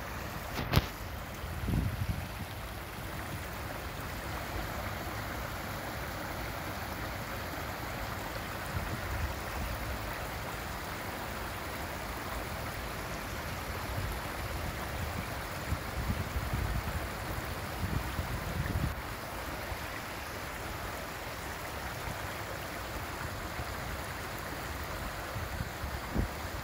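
Small woodland stream splashing steadily down a rocky cascade, with a sharp click about a second in and a few low rumbles of wind on the microphone.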